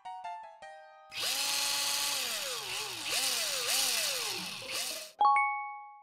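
A few falling musical notes, then a John Deere toy power drill whirs for about four seconds as it drives a plastic screw to fix a wheel on the toy tractor. Its whine sags in pitch and picks up again several times. A single bright chime rings near the end.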